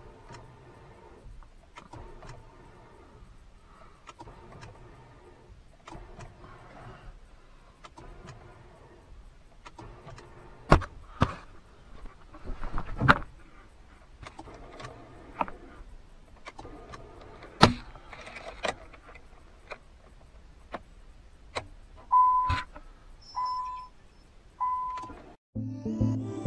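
Car key and keychain rattling in the ignition of a 2000 Nissan Maxima, with sharp clicks about eleven, thirteen and eighteen seconds in as the key is turned: the starter's bendix gear trying to engage the flywheel without cranking the engine, with the battery down at 11.4 V. Three short even beeps follow near the end.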